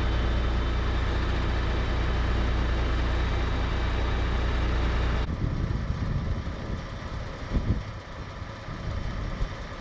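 Mack CF fire engine idling with a steady low hum. About five seconds in the sound cuts to a quieter, unsteady low rumble, with a brief thump a couple of seconds later.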